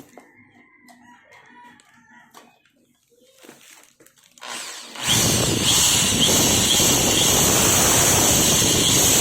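Corded INGCO electric power tool switched on about five seconds in and running at full speed with no load, a loud steady whirring whine, as it is test-run straight out of the box. Before that, only faint handling sounds.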